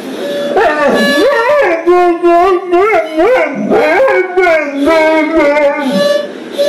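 A dog howling and whining in a string of wavering calls that slide up and down in pitch, one after another.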